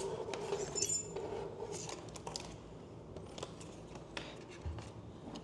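Light clicks and taps of hard plastic as the Emo desktop robot is set down onto its charging mat and home-station dock, with a brief high clink about a second in.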